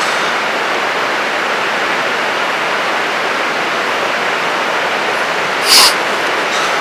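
Steady, loud rushing noise with no tone or rhythm in it, and one brief, sharper burst of noise about six seconds in.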